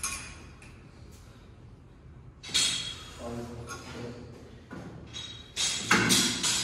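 Gym weights clanking and thudding: a knock at the start, a sharp clank about two and a half seconds in, and a louder cluster of clanks near the end.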